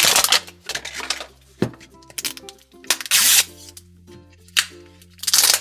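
Plastic wrapping of an LOL Surprise ball being peeled and torn by hand, crinkling in several short bursts, the longest about three seconds in. Background music with soft held notes plays throughout.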